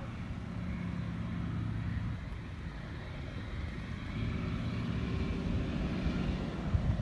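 Antonov An-2 biplane's single nine-cylinder radial engine droning steadily as the aircraft comes in low on its landing approach.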